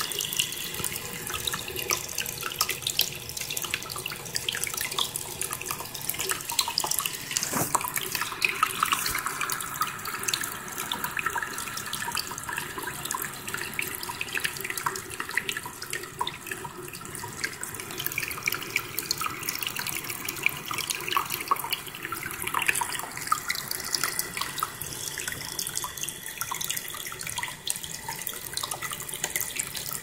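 Indoor tabletop waterfall fountain running: a thin stream of water spills from its spout and splashes steadily into the basin below.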